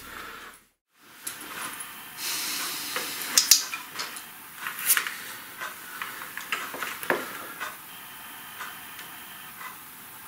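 A short dropout about a second in, then a steady hiss of room and recorder noise with scattered small clicks and rustles.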